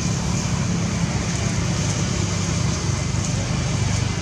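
Steady outdoor background noise: a low rumble, like distant traffic or an engine, under a constant high hiss.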